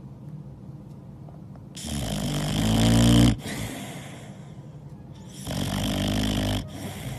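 Sleeping boxer dog snoring: two long rasping snores, the first growing louder and cutting off sharply, the second a few seconds later.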